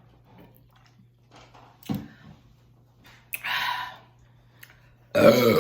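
A loud, deep burp begins about five seconds in, brought up by a gulped carbonated soda. Before it there are only a faint knock about two seconds in and a short breathy hiss in the middle.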